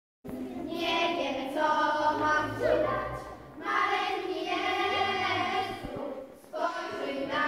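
A group of schoolgirls singing together into handheld microphones, in long held phrases with two short breaks for breath. The singing starts a moment in, after a brief silence.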